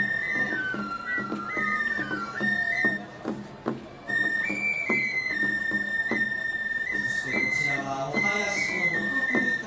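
Japanese festival music: a high transverse flute plays long held notes that step up and down, over sharp percussion strokes. The music drops off briefly about three seconds in.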